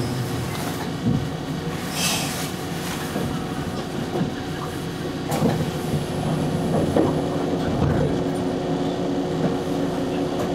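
Electric train rolling to a stop at a station, its running noise rumbling with a short hiss about two seconds in. Then the car stands still with a steady hum and a few clicks.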